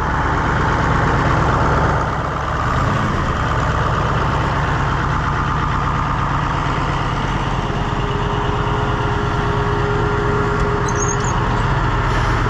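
White 4-150 tractor's Caterpillar 3208 V8 diesel running steadily. It does not want to stay running, and the owner suspects it is drawing air in somewhere.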